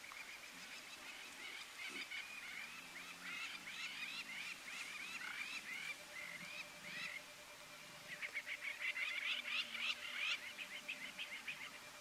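Wild birds calling: a series of short rising-and-falling notes, then a faster, louder run of notes in the second half.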